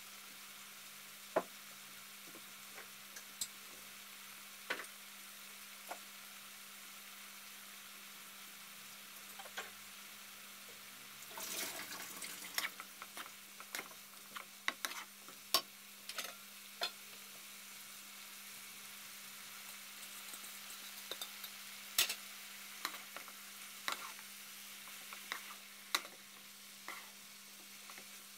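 Cabbage and carrots sizzling in a nonstick wok with a steady hiss, while a wooden spatula knocks and scrapes against the pan in scattered taps. The taps come in a busy flurry about eleven seconds in and keep recurring to the end. A steady low hum runs underneath.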